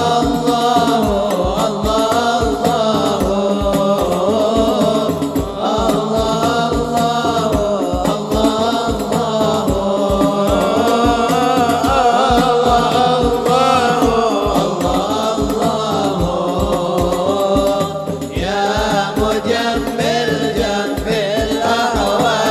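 Male voices singing an Arabic sholawat (devotional qasidah) through microphones and a PA, with a melismatic, gliding melody. A hadroh ensemble of frame drums and bass drum keeps a steady low beat underneath.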